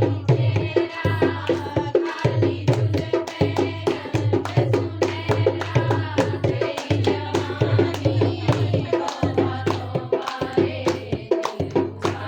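Loud song with a singing voice over a fast, steady drum beat and a heavy pounding bass.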